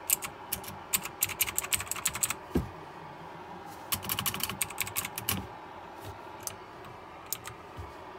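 KLIM Domination mechanical keyboard with clicky blue switches: keys clicking in quick runs, then a few single presses near the end, with one dull low thump about a third of the way in.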